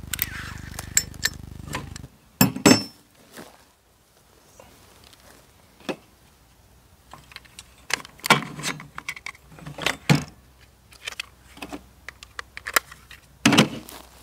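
Metal parts of an AR-15 pistol clicking, clacking and clinking as it is handled and worked by hand, in irregular sharp strokes. The loudest pair of clacks comes about two and a half seconds in, and a low steady hum stops just before it.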